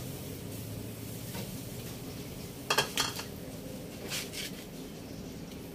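Metal tongs clinking against a charcoal grill's wire grate while turning hotdogs: two sharp clinks close together about halfway through, then a short rattle a second later.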